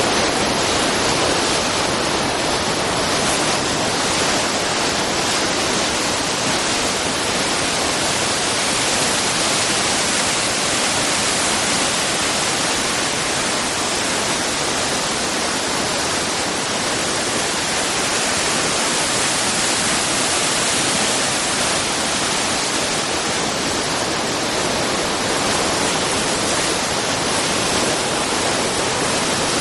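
Tietê River waterfall: a loud, steady rush of falling water.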